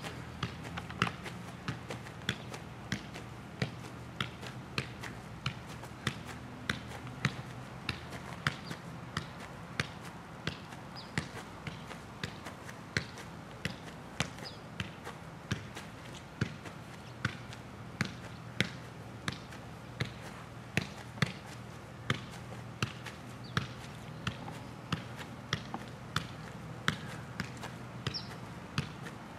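A size one soccer ball being juggled with the feet: a steady run of taps of foot on ball, about two a second, over a low steady hum.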